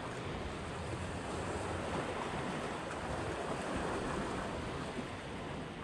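Steady rush of sea water and wind, with no distinct events.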